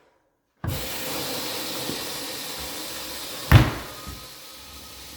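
Steady hiss that starts abruptly after a moment of silence, with one sharp knock about three and a half seconds in.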